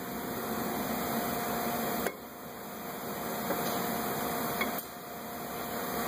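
Steady garage background hiss with a faint hum, broken by two light metallic clicks about two and five seconds in as the rear brake caliper is fitted back over the rotor.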